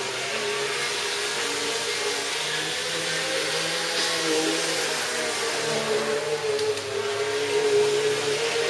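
Electric model train running around a tabletop layout: a steady motor whir with a wavering whine and wheel noise on the track.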